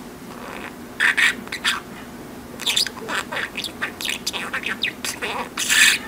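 Pet budgerigar chattering in quick, high-pitched bursts of mimicked speech, starting about a second in, over a steady low hum.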